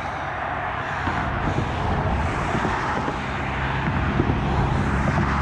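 Road traffic on the bridge: a steady hiss of passing vehicles, with a car's engine hum coming closer and growing louder over the last couple of seconds.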